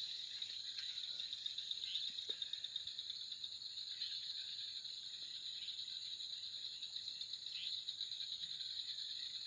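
High-pitched chorus of insects, a steady fast trill that does not let up, with a few short falling chirps about two seconds in and again near the end.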